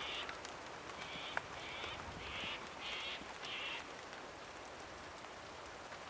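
Steady heavy rain falling, with a bird calling about six times in quick succession, the calls stopping about four seconds in.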